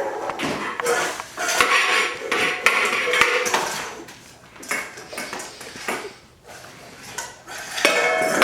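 Hard dishware clattering and rattling in quick, irregular knocks and scrapes, busiest in the first few seconds and then sparser. Near the end a set of steady ringing tones begins.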